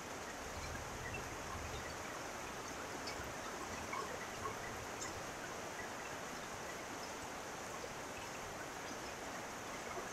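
Heavy rain falling steadily, with water pouring off the edge of a tiled roof in streams and scattered drips ticking on leaves.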